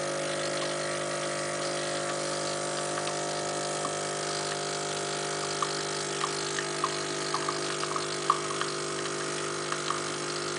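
Rowenta Prelude ES 5100 espresso machine's 15-bar pump running with a steady hum as it pushes hot water through the portafilter during the espresso shot. A few light ticks sound in the second half.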